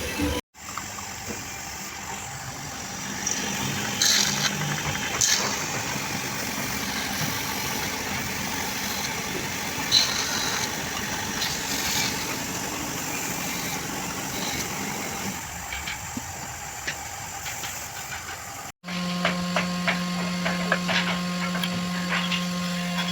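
A machine motor running with scattered taps and knocks, cut off briefly twice; after the second break a steady electric-motor hum takes over.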